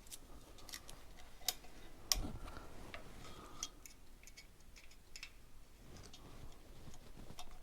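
Faint, irregular light metallic clicks and taps of small hand tools on the rocker gear of a Gilera 124 engine's top end as the exhaust valve clearance is set. The sharpest tap comes about two seconds in.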